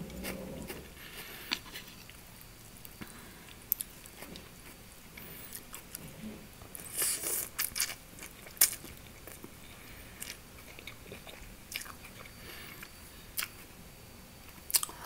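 A person eating glass noodles (funchoza) with chicken close to the microphone: chewing with small wet mouth clicks, and a louder slurp of noodles about seven seconds in.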